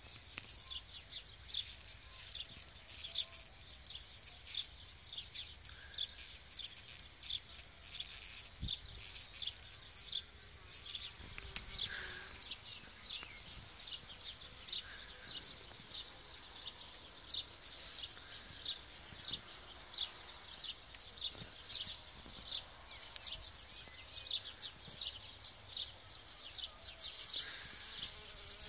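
Osmia mason bees buzzing faintly around their nest tubes, now and then swelling as one flies close. Over them runs a steady chatter of short high chirps, several a second.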